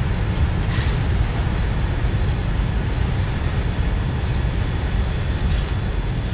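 Steady low rumbling noise, with faint short high chirps repeating about twice a second.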